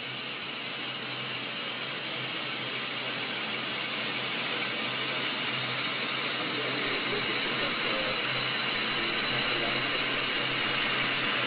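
CNC lathe running: a steady mechanical whir with a low hum, growing slowly louder.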